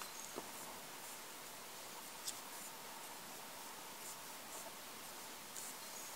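Faint steady background hiss, with a sharp click a little over two seconds in and a softer click near the start.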